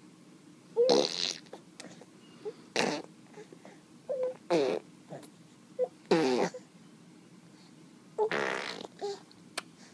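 A baby making her new mouth noise in about five short, loud, sputtering bursts with some voice in them, a step on from blowing raspberries.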